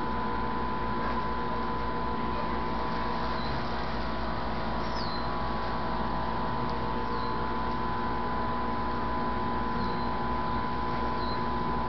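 A steady hum holding several fixed pitches, with about five faint, short, high chirps from a small bird spread through it.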